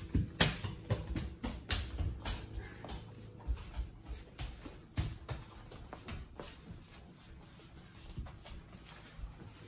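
Scattered light taps and knocks of close handling, close together in the first few seconds and thinning out after, over a faint low hum.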